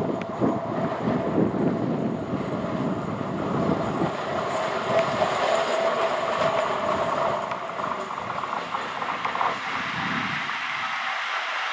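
ČD Cargo class 230 'laminátka' AC electric locomotive running light past at close range. Wheels and rails clatter rhythmically over the rail joints, with a steady whine in the middle, and the low rumble falls away near the end.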